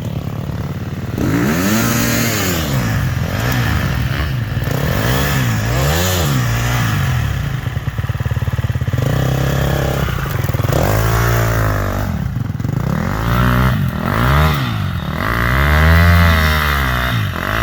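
Dirt bike engine revved up and down in repeated short bursts, about one every second or two, as the bike is worked over logs on the trail.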